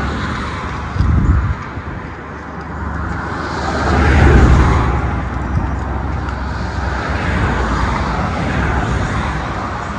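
Wind buffeting the microphone, a steady low rumble and hiss with a short gust about a second in and a stronger swell about four seconds in.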